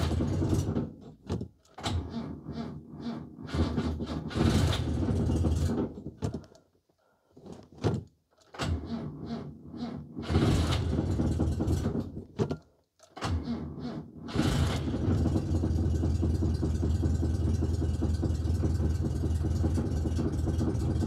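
1964 Renault Dauphine Gordini's rear-mounted four-cylinder engine being started and worked with the throttle: it fires in short bursts that die away several times, with brief silences between, then catches about 15 seconds in and runs steadily. The hard start is down to a tricky automatic choke.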